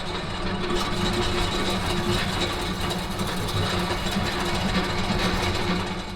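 Rebuilt Lightnin mixer gearbox running on test, a steady mechanical whir with a constant gear whine, beginning to fade near the end.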